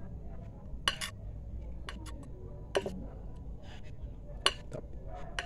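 A dull kitchen knife chopping peppers on a hard surface: a few sharp knocks and clinks, spaced a second or two apart, over a low steady background rumble.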